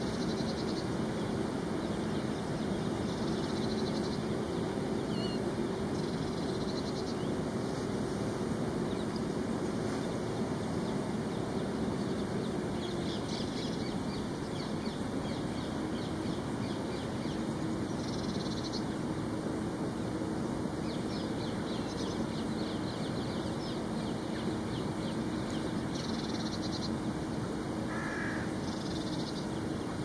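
Outdoor ambience: a steady background rumble with a low drone under it, and short bird calls every few seconds, one a little lower near the end.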